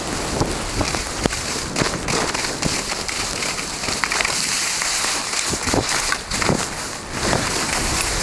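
A rider sliding down a snow slope: a steady hiss of snow under the skis or board, with many short crackling scrapes, and wind rushing across the microphone.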